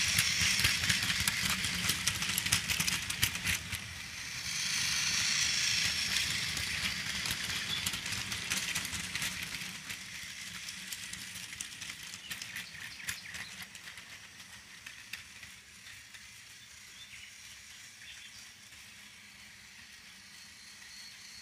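Motorized toy Thomas the Tank Engine running on plastic track while pulling five cargo cars: a whirring gear motor with many rattling clicks from the wheels and cars. It is loud in the first ten seconds, with a short dip about four seconds in, then fades steadily as the train runs away.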